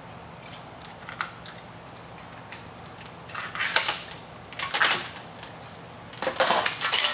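Plastic wrapping being cut and pulled off an aluminum storm-panel track: a few light clicks, then three bursts of crinkling plastic in the second half.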